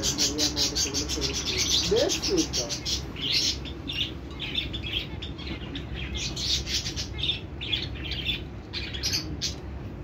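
Young parakeet chirping in rapid runs of short, high squeaks, several a second, with brief gaps between the runs.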